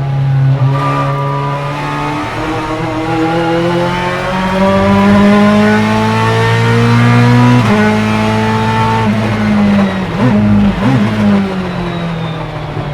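Ferrari F430 GT2 race car's 4.0-litre naturally aspirated V8 accelerating hard, its note climbing steadily for several seconds. The pitch drops sharply at an upshift about seven and a half seconds in. Around ten to eleven seconds in the note wavers briefly, then settles lower.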